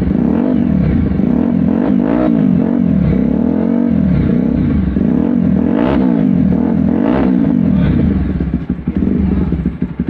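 TVS Apache RTR 160 4V's single-cylinder engine idling through an aftermarket performance exhaust, its note swelling and falling about once a second. The exhaust's vibration is shaking a glass of water on the fuel tank.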